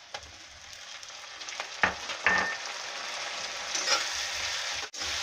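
Onion paste hitting hot oil in a kadhai and frying, a steady sizzle that grows louder as it spreads. Two short knocks about two seconds in.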